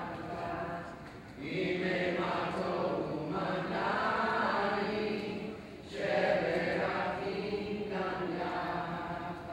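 A boy's voice chanting scripture in long sung phrases, the chanted reading of a bar mitzvah, with short breaks about a second in and near six seconds in.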